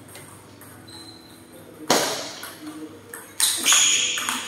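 Sharp clicks of a table tennis ball striking paddle and table, ringing on in a large room. A loud knock comes about two seconds in, a few lighter ones follow, and another loud one comes about three and a half seconds in.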